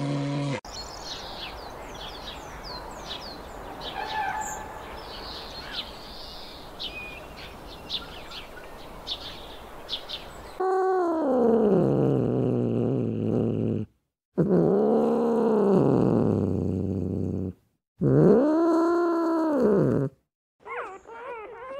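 Birds chirping over a steady background noise. From about halfway through, an animal gives three loud, long, drawn-out calls that rise and fall in pitch, each lasting a few seconds.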